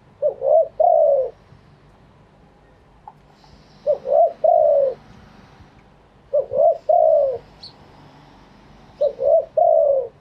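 Spotted dove cooing its song four times, about every two and a half seconds. Each phrase is two short rising coos followed by a longer falling coo.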